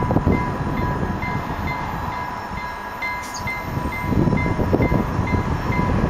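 Bombardier Regina electric train approaching, a low rumble with noise that grows louder from about four seconds in. Over it a short high ding repeats about three times every two seconds above a steady tone, like a warning bell.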